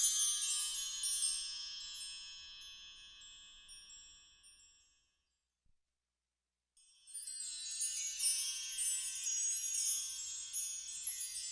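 Small bells ringing in a Russian bell-ringer's matins peal, many high tones sounding together. The chiming fades out to silence about five seconds in and starts again about two seconds later.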